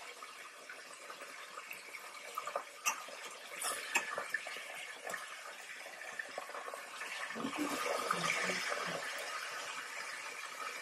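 Breaded chopped steak frying in hot oil in a pan, a steady sizzle, with a few light clicks and clatters of utensils early on and a louder rushing swell of noise near the end.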